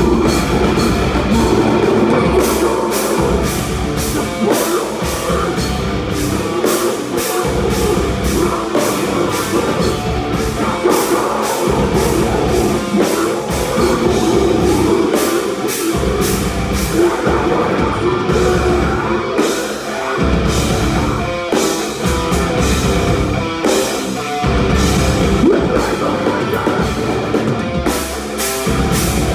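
Metalcore band playing live: distorted electric guitar and bass over a drum kit with rapid cymbal hits, loud and dense throughout.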